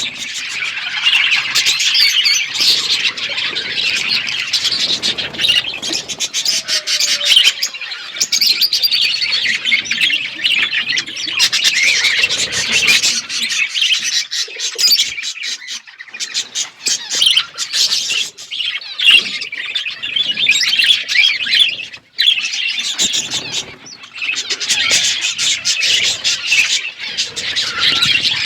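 Budgerigars chattering, a dense run of quick high chirps and calls from several birds overlapping without pause, with a brief lull about three-quarters of the way through.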